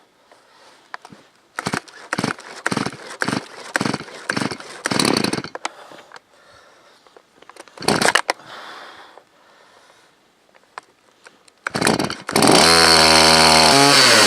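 Small two-stroke chainsaw being pull-started: a quick series of cord pulls with brief sputters, a pause, two more pulls, then the engine catches near the end and runs loudly, its speed falling off just before the end.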